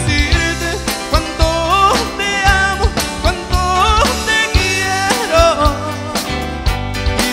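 A live band playing a song: electric bass, drums, electric guitar and keyboard under a lead melody that slides up and down in pitch over a steady beat.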